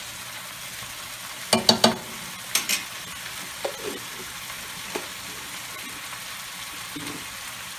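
T-bone steaks frying in a pan on the stove, a steady sizzling hiss. A quick run of three or four sharp knocks comes about a second and a half in, with a few lighter clicks after.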